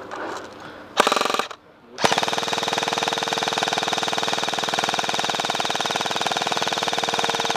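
M4-style airsoft rifle firing on full auto close to the microphone: a short burst about a second in, then a long continuous burst from about two seconds in, a very rapid, even rattle of shots over a steady whine.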